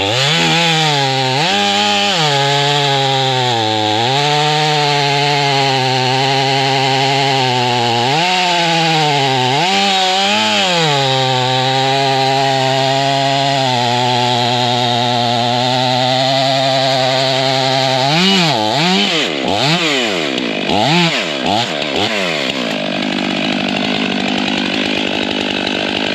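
Two-stroke chainsaw running at high throttle while cutting through a white oak log, its pitch dipping under load and recovering several times. About two-thirds of the way through come a few quick revs up and down, and then the engine note falls away near the end.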